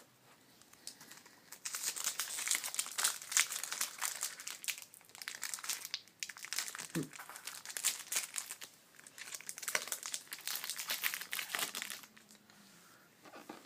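Crinkling of a foil trading-card pack wrapper being handled, a dense crackle that runs for about ten seconds with a short pause midway.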